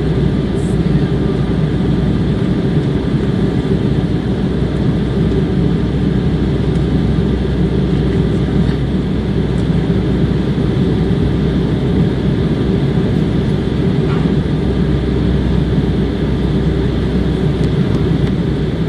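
Steady cabin noise inside an Airbus A320 in flight: the constant low drone of the jet engines and rushing air, unchanging throughout.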